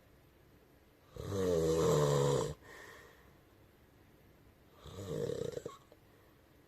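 A person snoring. About a second in comes one loud, buzzing snore lasting about a second and a half, and near the end a softer, breathier one.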